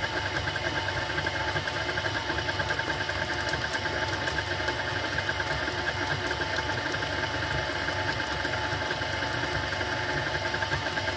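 KitchenAid Artisan stand mixer running steadily, its motor humming with a fast even pulse as the flat beater churns thick cream cheese batter in the steel bowl.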